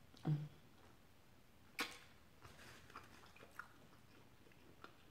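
Quiet, close-up eating sounds: a brief low tone near the start, a sharp click about two seconds in, then faint scattered mouth clicks of chewing.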